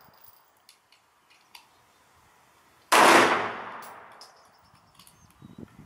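A single 9 mm pistol shot from an STI 1911 about three seconds in, followed by a long echoing tail that dies away over about a second. A few faint clicks come before and after it.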